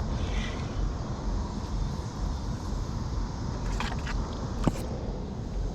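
Steady low outdoor rumble, with a couple of brief faint clicks about four and five seconds in.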